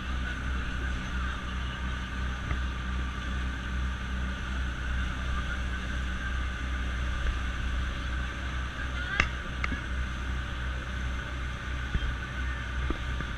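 Steady low engine drone heard from inside a moving passenger vehicle, with a single sharp click about nine seconds in.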